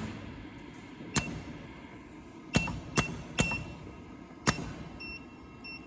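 Semi-automatic USB cable soldering machine's mechanisms actuating with about five sharp mechanical clacks, irregularly spaced. Several of the clacks come with a short high beep, as its functions are stepped through one button press at a time.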